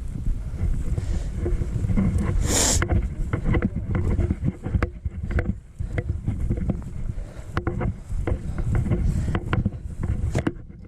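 Wind buffeting the microphone as a low rumble, over crackling footsteps and snapping brush while walking through thick vegetation, with a loud brushing rustle about two and a half seconds in.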